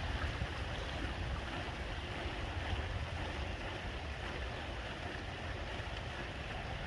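Steady wash of outdoor noise: wind buffeting the microphone over a background of running or splashing water.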